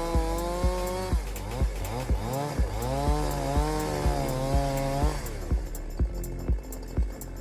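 Large 105cc chainsaw running at high revs through a log on a chainsaw mill. Its pitch sags and recovers several times under load, then drops away about five seconds in. Music with a steady beat of about two thumps a second plays over it.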